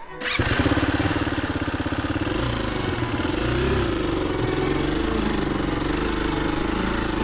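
Dual-sport motorcycle engine running on a dirt trail, its note rising and falling with the throttle. It cuts in sharply just after the start.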